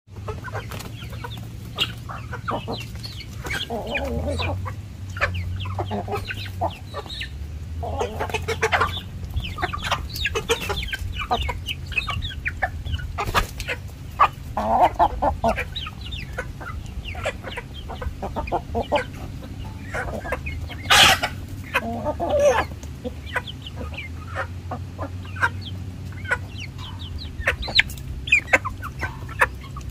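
Chickens clucking as they forage, with many short clucks throughout and several louder calls. The loudest sound is a sharp one about twenty-one seconds in.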